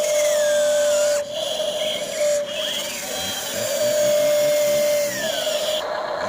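Electric motors of a radio-controlled model excavator whining at a steady pitch, stopping and starting again a couple of times as different movements are worked.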